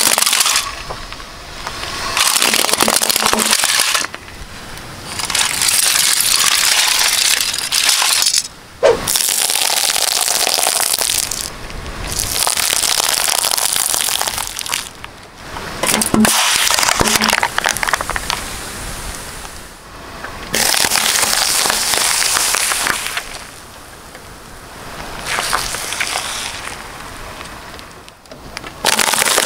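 Car tyre rolling slowly over one object after another and crushing it: cracking and crackling as a plastic toy cow, peanut shells and an apple break under the wheel. It comes in about eight separate spells a few seconds long, each cut off abruptly.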